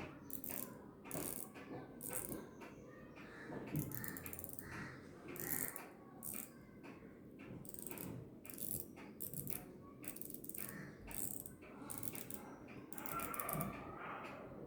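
Westend pocket watch movement clicking in short, irregular bursts: its winding ratchet and wheel train being wound and turned during reassembly, with the escape wheel not yet fitted.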